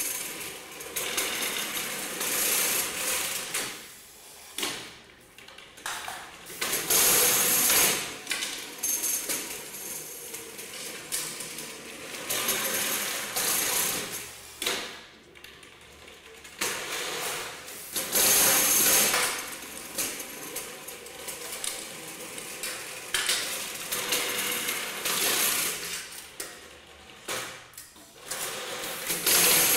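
Automated aluminium pipe-and-roller material-handling line driven by a pneumatic rack, running through its cycle: continuous metallic rattling and clattering of rollers, tubes and trays. Three louder hissing rushes come roughly eleven seconds apart.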